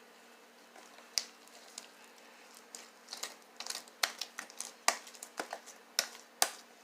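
A string of sharp, irregular clicks and taps, a few at first and then coming quickly, several a second, toward the end.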